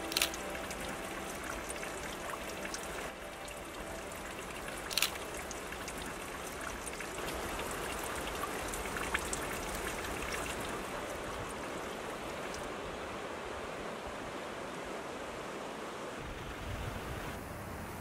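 Steady rush of running water from a mountain stream, with water trickling off a mossy bank, broken by a sharp click about five seconds in and a smaller one near nine seconds.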